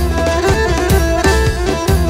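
Instrumental break in a Pontic Greek folk song: a bowed string melody over a steady drum beat and bass.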